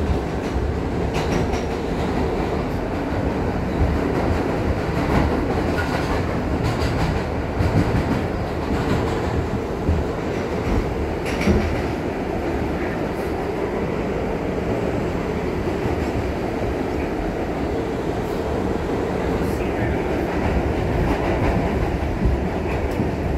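New York City subway car running on the track, heard from inside the car: a steady rumble of wheels and running gear, with a sharper clack now and then over the rails.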